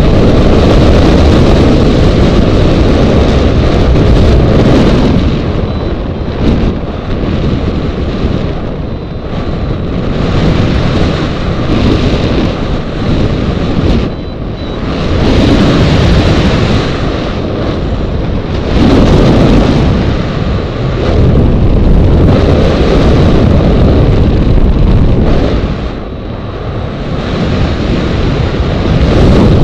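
Airflow buffeting the microphone of a hang glider's onboard camera in flight: a loud, rumbling rush of wind that swells and eases every few seconds.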